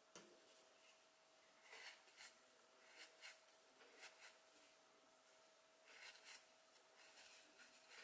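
Near silence with faint, short scratchy rustles of holofiber stuffing being packed into a small crocheted toy head with metal tweezers, about five times. A faint steady tone runs underneath.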